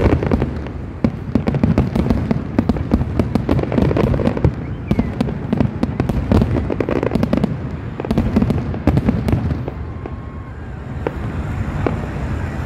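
Fireworks display: a fast, continuous barrage of aerial shell bangs and crackles, thinning out near the end.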